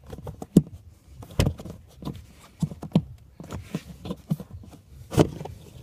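Plastic cover of a Volkswagen Passat B6 cabin-air-filter housing being worked and slid off by hand: irregular clicks, knocks and scrapes of hard plastic, the loudest about half a second in, near a second and a half, and just after five seconds.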